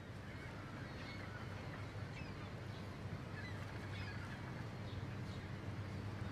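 Quiet outdoor ambience: faint, scattered bird calls over a steady low hum.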